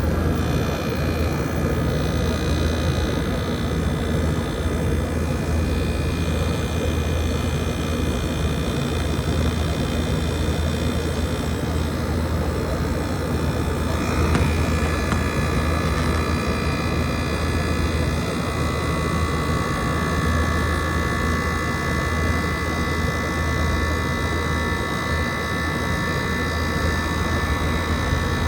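2012 Frigidaire 18,500 BTU window air conditioner running: a steady fan rush over a low hum, with a steady whine joining about two-thirds of the way through.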